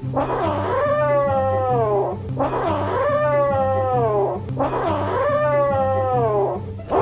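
Kitten giving three long, drawn-out meows in a row, each rising and then sliding down in pitch.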